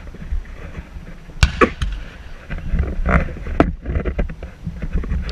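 A muzzle-loading field cannon fires down the line: one sharp report about a second and a half in, with a shorter crack right after it and a smaller burst near the middle, over a steady low rumble.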